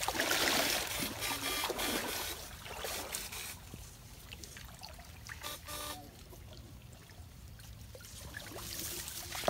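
Water trickling and splashing in a shallow, muddy flowing stream, loudest in the first two seconds, then quieter with scattered light rustles and knocks.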